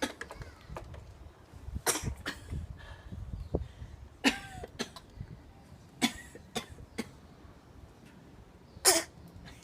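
Imitated coughing: a series of short, separate coughs spread through, the loudest about nine seconds in.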